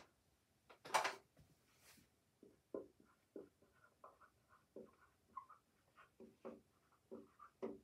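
Dry-erase marker squeaking and scraping on a whiteboard in short strokes, about two a second, as handwritten letters are written. A brief louder noise comes about a second in.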